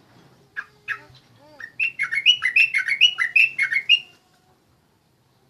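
Yellow-vented bulbul (trucuk) singing: two short calls, then a fast, loud run of bubbling, repeated notes for about two and a half seconds that stops abruptly.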